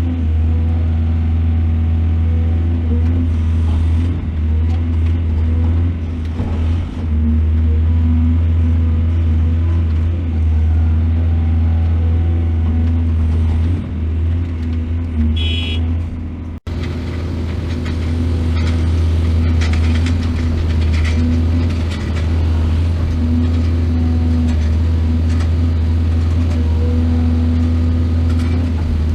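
Heavy diesel engine of a mining excavator running steadily under work, with a deep, constant drone. A short high-pitched beep sounds about halfway through, and the sound breaks off for an instant just after before the engine carries on.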